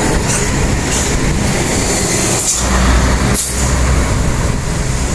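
Diesel engine of a sugarcane-laden truck with trailer pulling up a steep grade as it passes close by: a loud, steady low drone with road noise, broken by a few short hisses.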